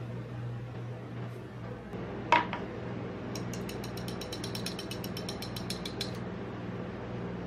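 A single metal clank, as of a steel spatula set down on the metal cold plate, then a quick run of clicks, about ten a second for nearly three seconds, as metal tongs are snapped open and shut. A steady low hum runs underneath.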